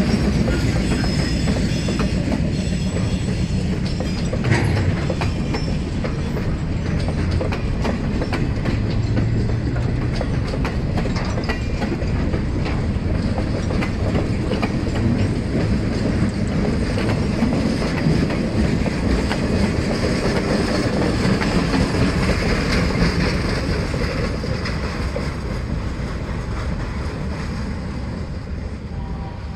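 The cars of a relief train (crane car, boxcars, caboose) rolling past: a steady clatter and clickety-clack of steel wheels on the rails, dying away over the last few seconds as the train moves off.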